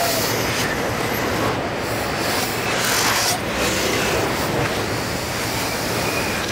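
Car assembly line din: a steady mechanical rumble and hum of the conveyor line and plant machinery, with louder hissing stretches about one and a half and three seconds in.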